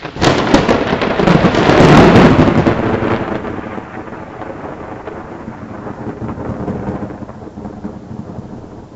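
A close thunderclap: a sudden cracking onset that builds to its loudest about two seconds in, then a long rumble that slowly fades.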